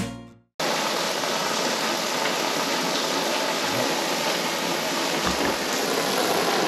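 Steady rush of water pouring into a pool as it is being filled.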